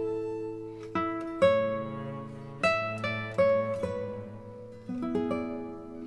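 Background music on plucked acoustic guitar: notes and chords picked every second or so, each ringing and fading.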